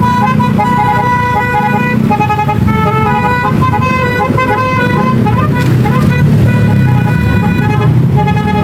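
Basuri telolet musical air horns playing a quick melody of short and held notes without pause, over the low rumble of a running engine.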